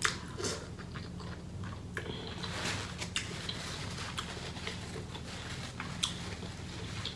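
Close-up eating sounds from a seafood boil mukbang: wet chewing, lip smacking and small mouth clicks, with a steady low hum underneath.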